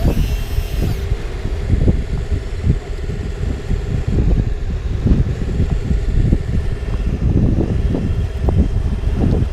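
Homemade electric RC backhoe loader working, its motor giving a thin steady whine for the first three seconds, under a heavy low rumble of wind buffeting the microphone.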